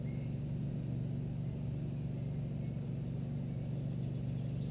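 Steady low hum, with a few faint bird chirps near the end.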